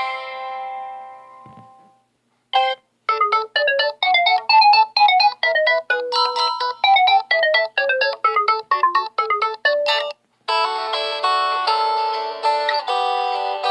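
Phone ringtones played one after another. A tone dies away, then a short blip, then a fast tune of short, separate notes for about seven seconds that cuts off. A new tone with fuller, held chords starts near the end.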